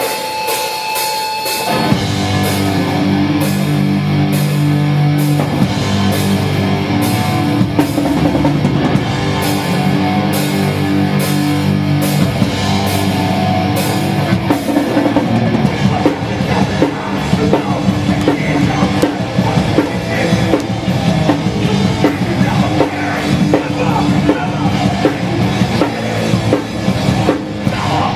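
Hardcore punk band playing live: distorted guitars, bass and fast drums with crashing cymbals. The full band comes in heavily about two seconds in.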